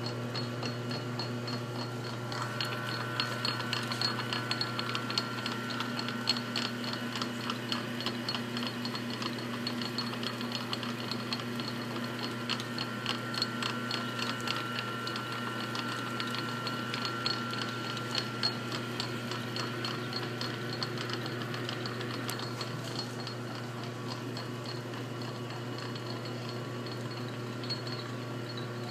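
Metal lathe running with a steady motor and belt-drive hum while a tap is power-fed into the spinning workpiece. A rapid ticking and a thin high whine ride over the hum, then die away about twenty seconds in, leaving the lathe running on its own.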